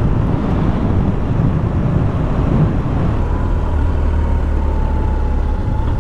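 2005 BMW R1200GS's flat-twin engine running steadily while riding along a gravel road, with a constant rumble of wind and road noise. A faint steady whine joins it about halfway through.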